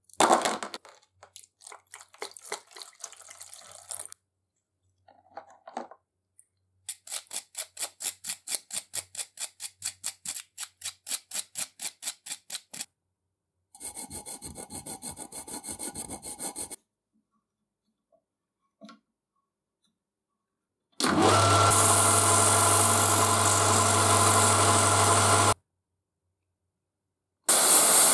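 A series of separate metalworking sounds. A hand file rasps over a steel weld bead in even strokes, about three or four a second, then in a quicker steady run. In the last third come two loud, steady noises with a low hum under the first; the second is a gas torch heating a steel screw.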